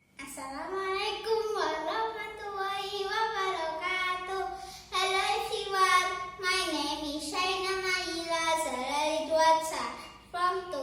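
A child singing a melody alone, with long held and sliding notes and a short pause about five seconds in.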